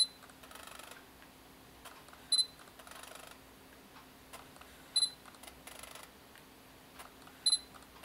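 Sony A7R II focus-confirmation beep, a short high double beep four times about two and a half seconds apart as autofocus locks, each followed a moment later by a faint jittery rustle from the adapted lens on a Sigma MC-11 mount converter. The owner thinks the jittery sound comes from within the focus mechanism.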